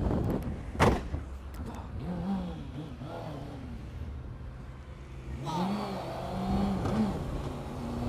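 Motorcycle engine running steadily while riding in traffic, with a single sharp crack about a second in and a few rising-and-falling tones in the middle and latter half.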